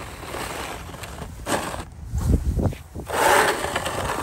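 Plastic snow shovel pushed along snow-covered paving stones, its blade scraping the pavement and shoving snow in a few uneven strokes.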